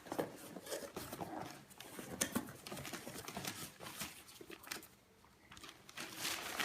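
A cardboard box being opened and its packing paper handled: rustling, crinkling and scattered clicks and taps, with a brief lull about five seconds in.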